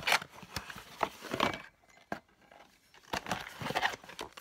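Packaging crinkling and tearing in a few short bursts as a mug is unwrapped by hand, with a lull in the middle.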